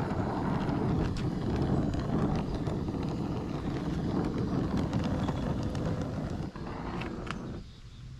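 Oxy-acetylene torch flame running steadily while it heats a cast iron pulley for brazing with brass rod. Near the end the noise drops away as the torch is pulled off.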